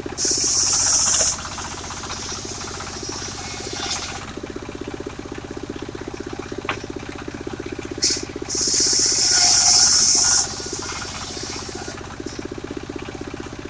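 A mobile circular sawmill's engine runs with a steady pulsing beat. Twice the circular saw blade bites into mahogany with a loud, high-pitched hissing whine: about a second at the start, then about two seconds in the middle.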